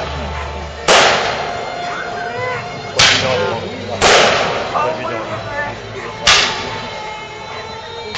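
Aerial fireworks shells bursting with sharp bangs, four in about six seconds, each fading away over a second or so.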